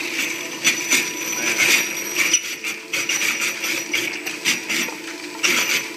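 A tyre on a shaft-driven test rig spinning in loose sand, throwing grit. There is a steady hum from the drive, with irregular gritty hissing bursts several times a second as the sand sprays.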